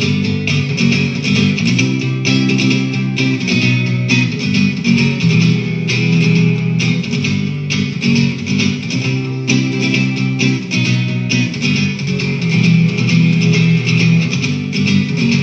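Instrumental guitar music: strummed guitar chords at a steady beat over a bass line, with no singing.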